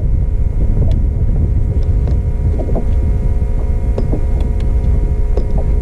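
Bass boat's outboard motor running at speed: a loud, steady drone with a heavy low rumble.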